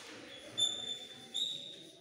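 Chalk squeaking on a blackboard while words are written: two high, steady squeaks, one starting about half a second in and a second just past the middle, each fading out over most of a second.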